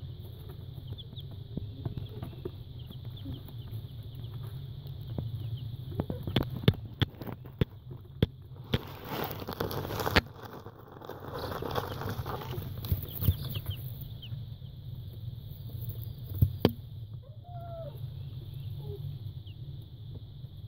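Baby chicks peeping with short, high chirps, over a steady low hum. Sharp taps and a few seconds of rustling in the shredded-paper bedding come from the chicks moving around close by.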